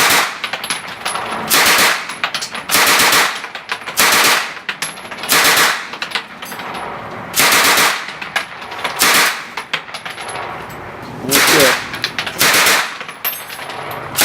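Machine gun firing short bursts of automatic fire, about nine bursts with gaps of one to two seconds between them.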